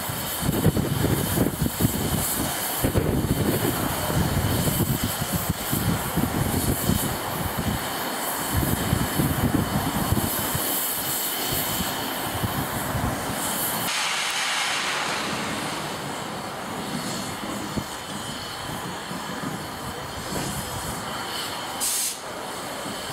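Peppercorn A1 Pacific steam locomotive 60163 Tornado in steam: a steady hiss under a heavy, uneven low rumble for about the first half, which changes abruptly to a brighter, steadier hiss, with one short burst of hiss near the end.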